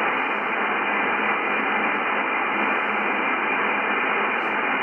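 Yaesu FTdx10 shortwave transceiver on the 20 m band in upper sideband, giving a steady hiss of band noise through its narrow 3 kHz receive filter, with no signal heard.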